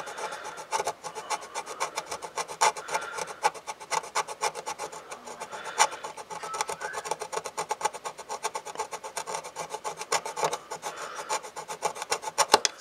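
Small flathead screwdriver tip scraping the enamel coating off copper traces on a circuit board in many quick, irregular strokes, baring the copper so it can be tinned with solder.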